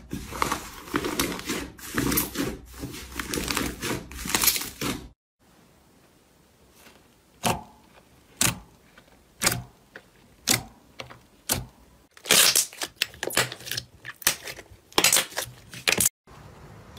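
Slime being played with: dense crackling and clicking, then single sharp pops about once a second, then a quick run of crackling clicks again, in three short cuts.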